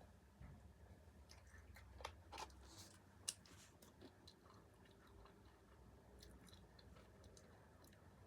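Faint, close chewing of food with a few crisp crunches and wet mouth clicks. The clicks are most frequent in the first four seconds or so and thin out after that.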